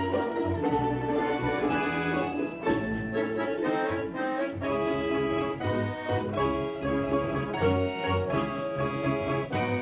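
Russian folk-instrument orchestra playing a rhythmic tune, with accordions and plucked strings together.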